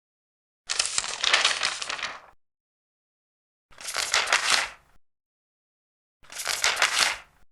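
Large paper pages being turned, three times: each turn is a crisp rustling swish lasting one to two seconds, with silence between.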